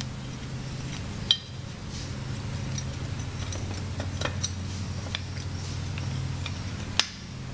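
Scattered light metal clicks and clinks from a J-Power three-piece adjustable rear camber arm as it is handled and its threaded middle adjuster is turned to set the arm's length. A sharper click comes about a second in and another near the end. A steady low hum runs underneath.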